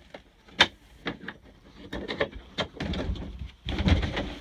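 RV bathroom door being opened: one sharp latch click about half a second in, then lighter clicks and knocks, and low thumps and rumble near the end.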